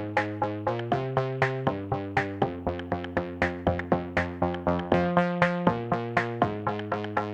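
Background electronic music: synthesizer chords over a steady drum-machine beat.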